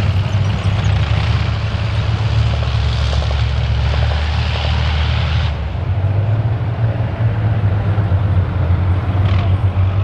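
A heavy engine running steadily with a deep drone, under a broad hiss that falls away about five and a half seconds in.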